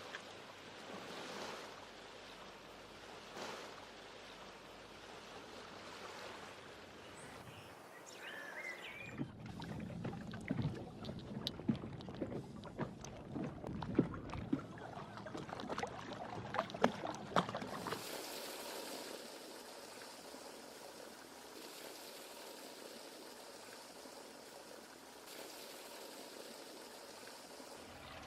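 Harbour water sounds: water lapping and trickling, with a busier middle stretch of sharp splashes and clicks, settling into a smoother steady wash near the end.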